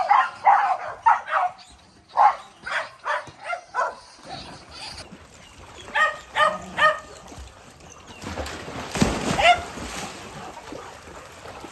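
Dogs barking in quick runs of short barks, then water splashing about nine seconds in as dogs swim and scramble in a pool.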